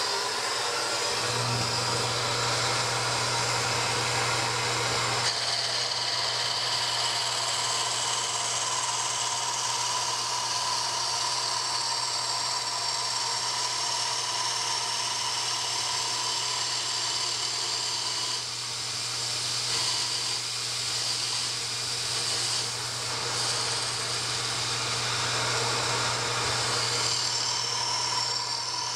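A Logan metal lathe starts about a second in and runs steadily, turning a wooden pipe down toward a round diameter, with a vacuum running throughout to pull the chips off at the cutting tool.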